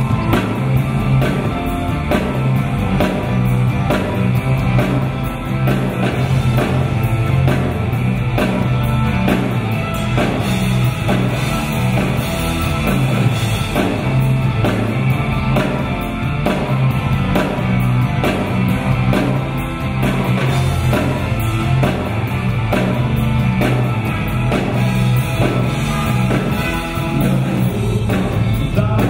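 Rock band playing live: electric guitars, bass guitar and drum kit with a steady, even beat.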